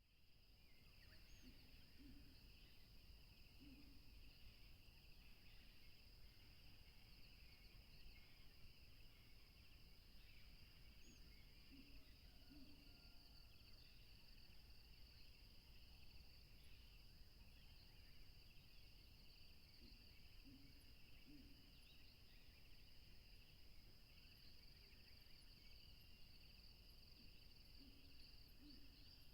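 Faint outdoor nature ambience: a steady chorus of insects such as crickets trilling in two high bands, with scattered small bird chirps. A low two-note call repeats about every eight seconds.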